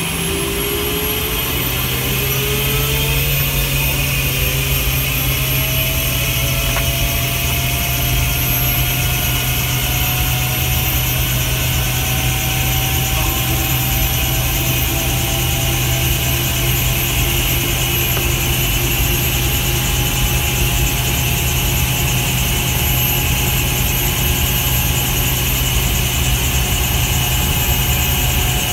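Airbus H120's Arrius 2F turboshaft engine starting up: its turbine whine rises in pitch over the first several seconds, then holds at a steady pitch as the engine settles into a continuous run over a steady low drone.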